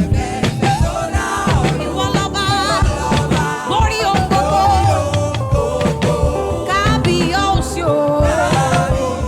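Live gospel praise music: singing voices over a band with a drum kit playing a steady beat.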